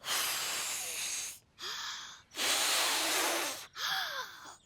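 A young child blowing out hard, four long puffs of breath in a row with short gaps, a little voice catching in some of them.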